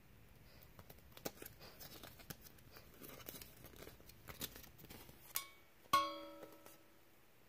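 Paper instruction leaflet and plastic packaging crinkling and rustling in the hands as they are unfolded, in a run of small crackles. About six seconds in a hard object gives a sharp clink that rings out for about a second.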